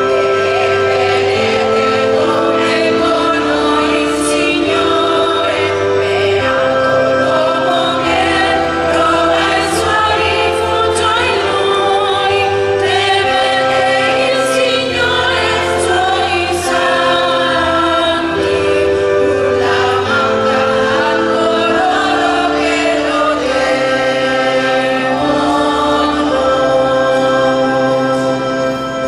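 Small church choir of mostly women's voices singing a hymn, over steady held accompaniment chords with a slow-moving bass.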